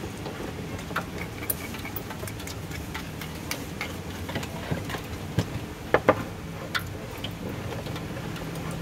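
Wooden pestles grinding ketoprak peanut sauce on ceramic plates: irregular taps and scrapes of wood on china, with two louder knocks about six seconds in, over a steady low hum.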